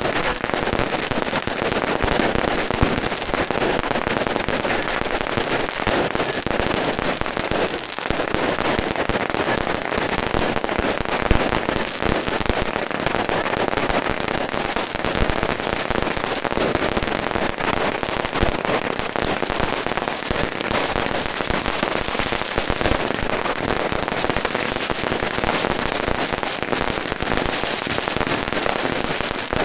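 Firecrackers going off in a dense, continuous crackle of rapid bangs, with a few louder pops standing out.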